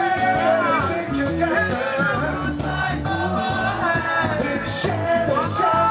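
Live reggae band playing: a stepping bass line and shaker under a melody line that bends up and down in pitch.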